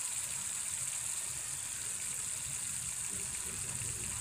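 Thick manchurian gravy simmering in a pan on the stove, a steady sizzling hiss with a low hum underneath.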